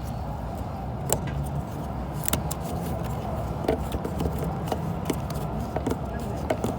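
Short plastic clicks and knocks of a headlight bulb being pushed into its wiring socket connector by hand, about eight of them scattered irregularly, over a steady low rumble.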